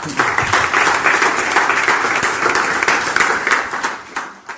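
Audience applauding at the close of a lecture: many hands clapping together, tapering off near the end.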